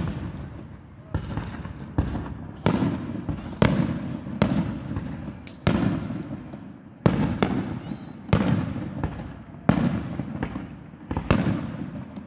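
Aerial fireworks shells bursting one after another, a sharp boom about every second, about a dozen in all, each trailing off in echo.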